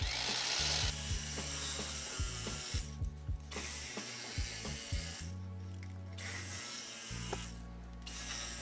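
Electric carving knife running in several bursts with short stops between, its reciprocating blades giving a rattling buzz.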